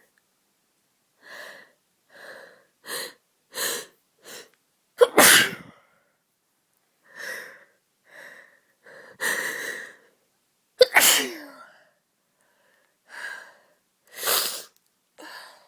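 A person with a bad cold sneezing repeatedly, in a string of short separate bursts and catching breaths. The two loudest, sharpest sneezes come about five and eleven seconds in.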